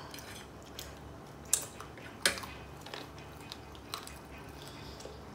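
Close-up eating sounds: quiet chewing and mouth noises, with a few short sharp clicks, two louder ones about a second and a half and two seconds in.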